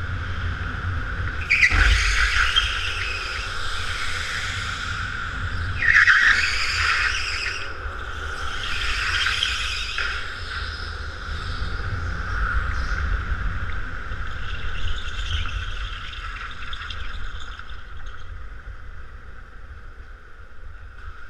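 Go-kart heard from onboard at speed: a steady high motor whine over a low rumble, with the tyres squealing through corners about 2, 6 and 9 seconds in. The sound eases off near the end as the kart slows.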